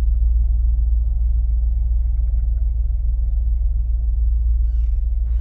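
Outdoor desert ambience dominated by a steady low rumble, with faint scattered ticks above it.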